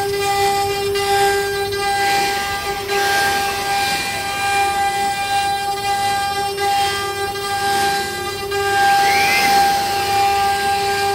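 CNC wood router spindle running at speed with a steady high whine, its bit cutting grooves into a wood panel. A rough hiss of cutting rises and falls as the head moves along the pattern.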